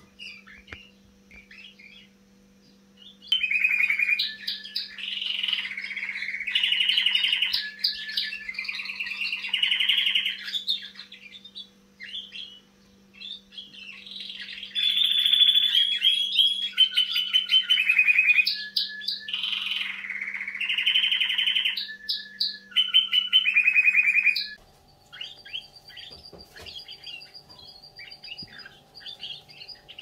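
Young canary singing: long phrases of rapid trills and rolling notes in two bouts with a short lull between them. Near the end the song stops and only faint chirps remain.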